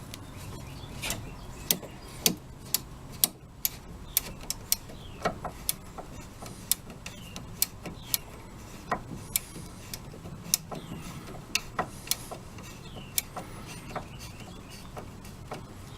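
A screw being driven by hand into the replacement lamp housing of a Samsung DLP television: a run of irregular, sharp small clicks, about one or two a second, as the screw is turned down to fingertip tight.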